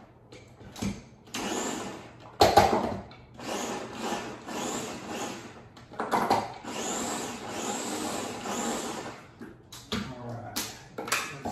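Ninja electric food chopper pulsed by pressing down on its top, its motor running as it chops avocado and garlic: several short pulses, then one longer run of about three seconds. A few sharp clicks follow near the end as the chopper is handled.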